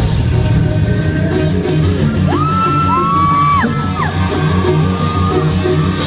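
Rock band playing live through a concert PA, with loud guitars and a steady drum beat. A few high sliding notes come in about two seconds in and fade about two seconds later.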